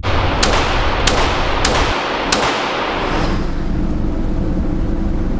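Four pistol shots from a Glock firing .357 SIG through a ported Lone Wolf conversion barrel, about two-thirds of a second apart, each ringing out in the echo of an indoor range.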